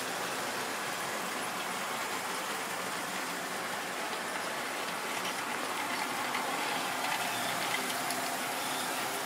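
Steady running noise of a long Tri-ang or Lima model railway freight train, its wagon wheels rolling along the track.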